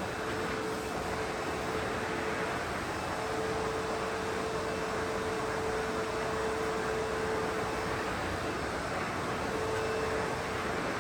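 ProTeam Super Coach backpack vacuum running with a steady rush of suction air and a motor whine that fades in and out.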